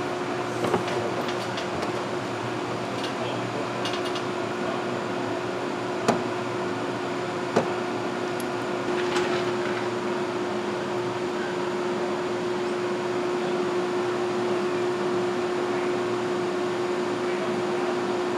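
A steady machine hum holding one constant pitch, with a few sharp knocks, the first two within the first eight seconds.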